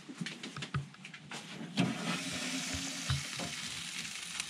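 Marinated tuna sosaties in a hinged wire braai grid sizzling over hot coals, a steady hiss that starts about two seconds in. Before it come a few light metallic clicks and a knock as the grid is set down on the braai.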